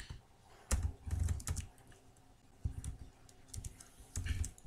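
Computer keyboard being typed on: scattered keystrokes in short clusters with pauses between them.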